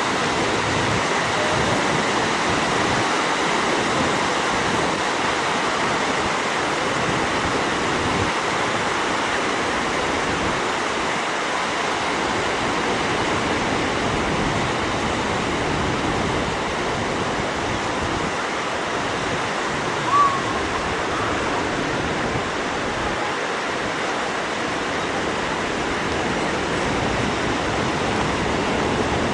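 Sea surf breaking and washing up a sandy beach: a steady, unbroken rush of waves. A single brief high sound cuts in about twenty seconds in.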